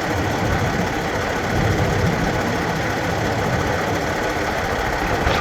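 A steady low rumble of an engine running.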